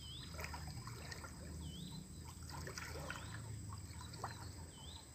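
Faint sloshing and trickling of water as a person wades through shallow muddy water, with a bird repeating a short whistled call, rising then falling, about every one and a half seconds.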